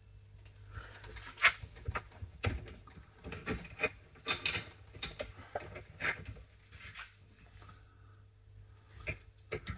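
Irregular metallic clinks, taps and scrapes of hand tools, including a spanner, working on a brake caliper held in a vise, with a busier cluster of clatter about halfway through.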